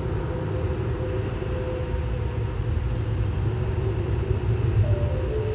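A steady low rumbling drone with thin held tones above it. Near the end the held tone steps to a new pitch and sustains.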